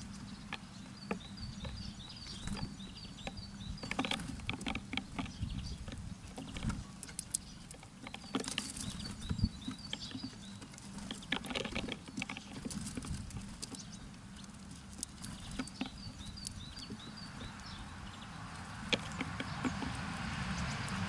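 Small birds at a feeder pecking and landing, making an irregular patter of taps and clicks, with a rapid run of short, high call notes twice.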